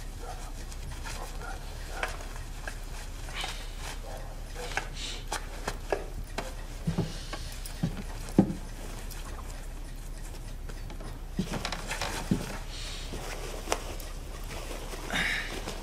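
Scattered light knocks and clinks of objects being handled, a few sharper ones around the middle.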